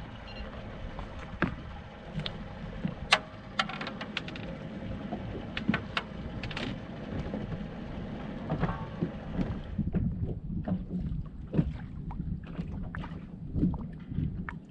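Steady low wind rumble on the microphone with water lapping at the boat, under scattered sharp taps and knocks as a just-landed crappie and the fishing rod are handled on the boat's deck. The loudest is a single sharp knock about three seconds in.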